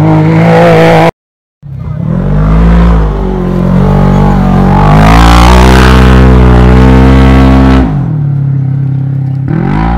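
Rally buggy engines revving hard as the buggies power-slide past on a dirt track, the pitch climbing and falling with the throttle. The sound cuts out for half a second about a second in, then a buggy holds high revs for several seconds before the engine note drops away near the end and another rises.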